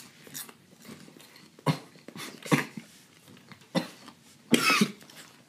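Short, sharp coughs, about five of them, the strongest a pair near the end, as the chewed dried ghost pepper's heat catches in the throat.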